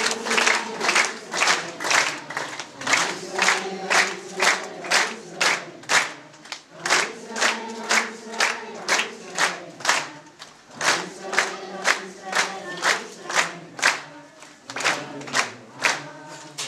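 A group of Ethiopian Jews (Beta Israel) singing together in phrases over steady hand-clapping, about two claps a second.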